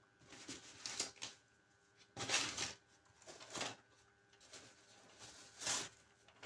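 Handling noise from the small drone and its packaging: several short rustles and scrapes a second or two apart.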